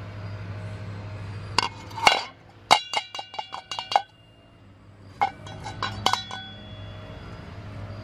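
Sharp metallic clinks and taps as the small rusted orifice fitting and parts of a gas water-heater burner are handled against each other. They come in three groups, the middle one a quick run of about eight ringing taps.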